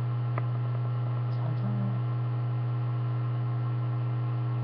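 Steady low electrical hum with fainter steady higher tones above it, and one faint click about half a second in.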